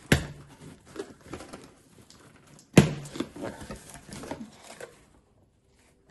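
A shipping package being handled and opened: two sharp knocks, one at the start and one just under three seconds in, with smaller clicks and rustling of the packaging between, stopping about five seconds in.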